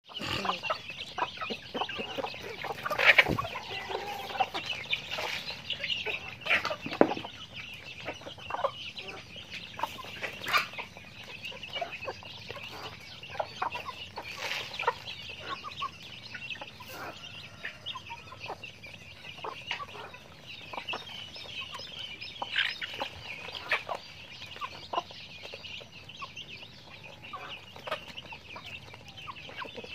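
A backyard flock of chickens clucking, with a continuous high cheeping of chicks underneath and sharper, louder calls now and then.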